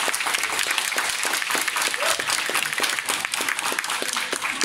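Audience applauding: many hands clapping together, easing a little near the end.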